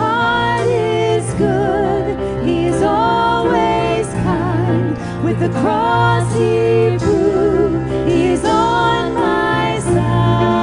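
Two women singing a contemporary worship song with a live band of keyboard, electric guitars and drums; the sung lines carry vibrato.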